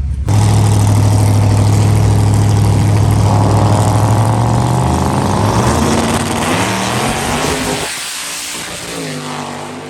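A race car's engine at full throttle, starting abruptly, holding a steady low note for a few seconds, then rising in pitch as the car pulls away and fading out near the end.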